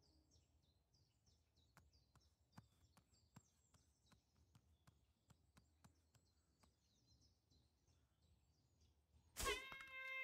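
Quiet forest ambience in an animated film soundtrack: faint high bird chirps and a few scattered faint clicks. Near the end a sudden loud musical note starts and is held.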